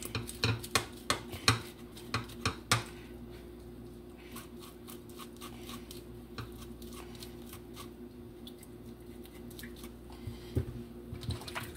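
Small kitchen knife scraping the roasted brown skin off pieces of goat meat, with a quick run of sharp scrapes and clicks in the first three seconds, then fainter, sparser scraping. A steady low hum runs underneath.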